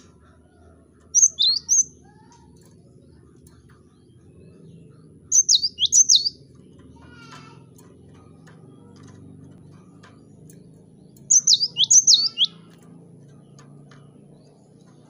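Cinereous tit (gelatik batu) singing in three short bursts, each a few quick, high, downward-swept notes, several seconds apart, over a faint steady low hum.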